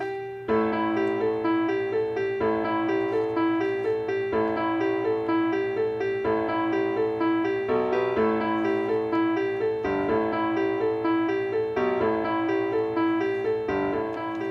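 Background piano music: a repeating pattern of several quick notes a second over a steady lower part.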